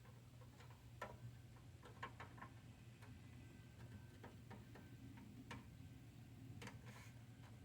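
Near silence: faint, irregular clicks over a low steady hum.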